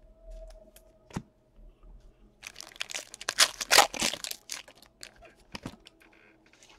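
A single sharp click about a second in, then the plastic wrapper of a baseball card pack being torn open and crinkled for about two seconds, loudest in the middle, with a few lighter crackles after as the cards come out.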